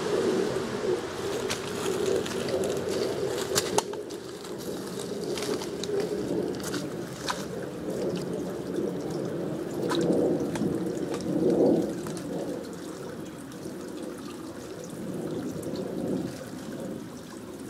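Spring water pouring steadily from a pipe and splashing onto the ground, with a number of short sharp clicks and taps over it.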